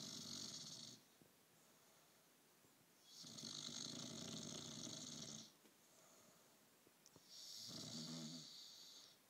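Bullmastiff puppy snoring in its sleep: three slow snoring breaths about four seconds apart, the middle one the longest.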